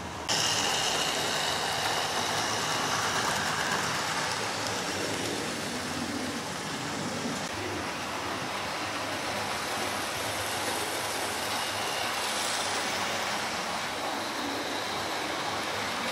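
Model trains running round a home layout: a steady rumble and rattle of wheels on the track, with faint high motor tones in the first few seconds. The sound steps up in level suddenly just after the start.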